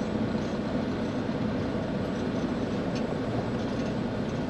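Semi truck's diesel engine running steadily with road noise, heard from inside the cab while driving.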